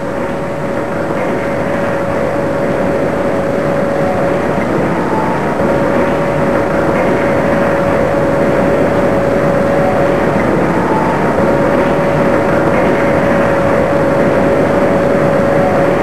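Steady roar of molten high-speed steel being tapped from an electric melting furnace into a ladle. A held mid-pitched tone runs through it and breaks off briefly about every five to six seconds.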